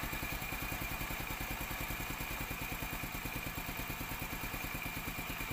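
Motorcycle engine idling steadily, a low even chug of about eleven pulses a second, with a steady high whine alongside it.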